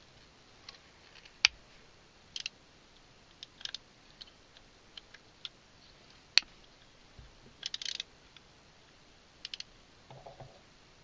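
Scattered clicks and taps of a Beyblade launcher and tops being handled, with two sharp knocks about one and a half and six and a half seconds in.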